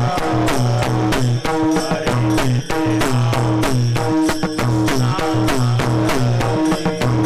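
Instrumental kirtan accompaniment with no singing: a fast, even drum-and-percussion rhythm over a repeating low pitched tone.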